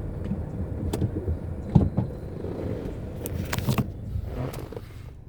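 Cabin road rumble inside a 2016 Mazda 3 on the move, with irregular clicks and rattles from the right corner of the passenger-side dashboard near the speaker. The clicks come thickest about three to four seconds in.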